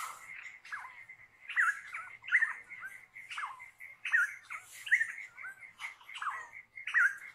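Australian forest birds calling, about one short sliding call a second, over the steady pulsing high trill of crickets.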